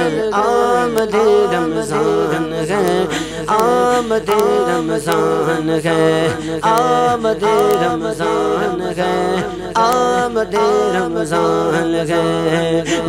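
Man singing a naat, an Urdu Islamic devotional song, into a handheld microphone; the melody sweeps up and down in a regularly repeating pattern.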